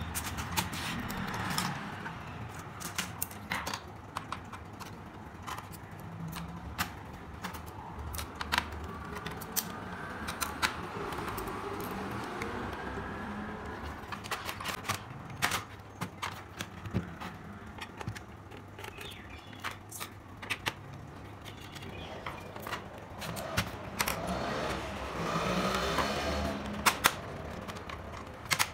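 Irregular sharp plastic clicks and snaps as a Dell Latitude 3440 laptop keyboard is pried out of its palmrest and lifted off, over a steady background hum.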